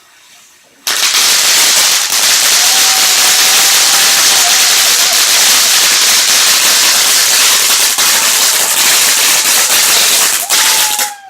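TNT Pink Bling firework fountain going off with a loud, dense crackle that starts suddenly about a second in and keeps on steadily, dipping briefly near the end.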